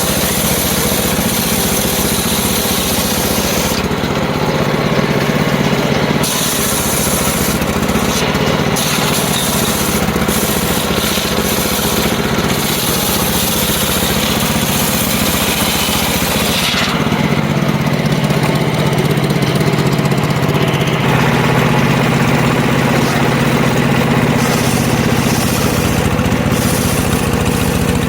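Circular saw running steadily while cutting wood, its sound shifting about four seconds in and again around seventeen seconds in.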